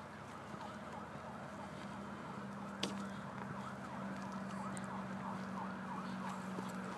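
Distant emergency-vehicle siren on a fast yelp, rising and falling several times a second, faint over a steady low hum. A single sharp click comes about three seconds in.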